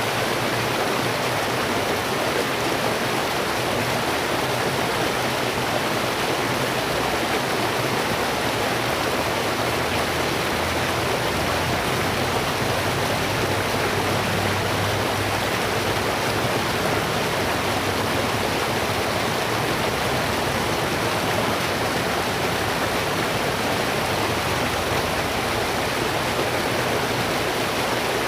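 Steady rush of flowing stream or river water, an even hiss that does not change.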